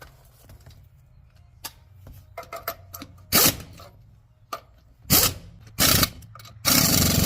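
Impact wrench fitted with a torque stick, running the wheel's lug nuts down in short hammering bursts: a few light clicks, then four bursts in the second half, the last one longer.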